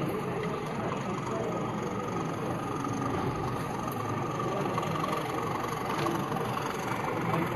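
Steady hubbub of many people talking at once in a large hall, with no single voice standing out.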